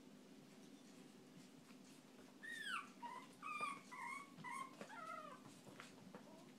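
Chihuahua puppy whining: one long, high, falling whine about two and a half seconds in, then a string of about five short high yips over the next few seconds.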